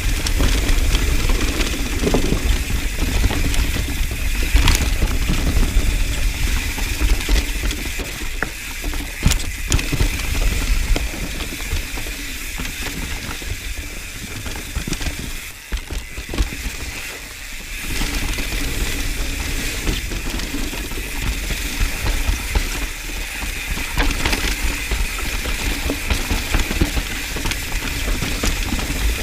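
Mountain bike ridden fast down a dirt trail, heard from a camera mounted on the bike: wind rumble on the microphone and tyre noise, with knocks and rattles over roots and rocks, and the rear freehub's ratcheting buzz while coasting. It eases off briefly about halfway, then picks up again.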